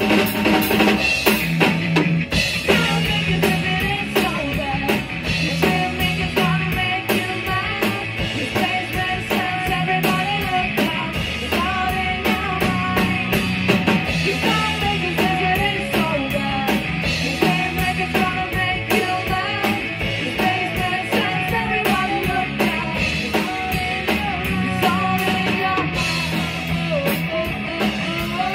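Rock band playing live together: electric guitar, bass guitar and a Sonor drum kit, with busy drumming under a steady pulsing bass line.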